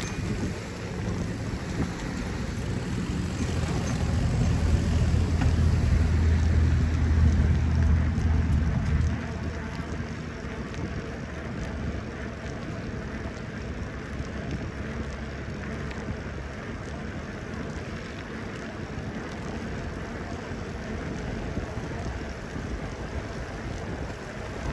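Wind buffeting the microphone of a camera on a moving bicycle. A louder low rumble builds over the first few seconds and drops away suddenly about nine seconds in.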